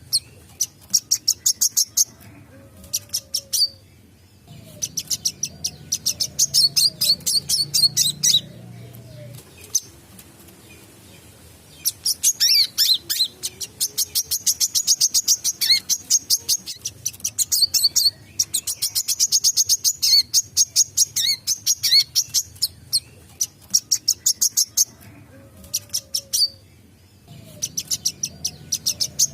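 A wiceh sunbird singing vigorously: rapid, high chattering phrases of quick repeated notes, in bursts of a few seconds with short pauses between.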